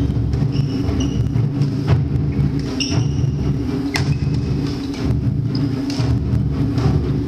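Badminton rally: sharp racket strikes on the shuttlecock every couple of seconds and short high squeaks of shoes on the court, over a steady low rumble.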